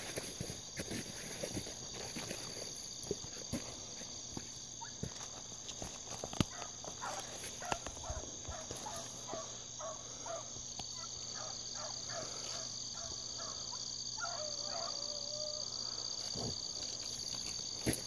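Steady high insect chorus of crickets. In the middle, distant hounds bark in a quick string of short calls, then one long drawn-out bay. Footsteps crunch on the dirt trail.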